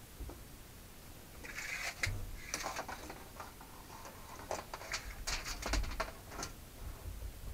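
A tape measure being pulled out and handled against the floor, giving a run of clicks and rattles from about a second and a half in until near the end, with a few low thumps.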